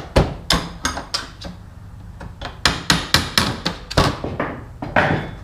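A series of sharp knocks and bangs, in two runs, as the lid of a belt grinder's shipping box is struck and popped open.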